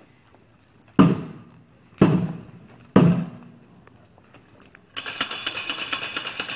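Three slow, heavy drum beats about a second apart, each ringing briefly, then a continuous dense rattle that starts near the end.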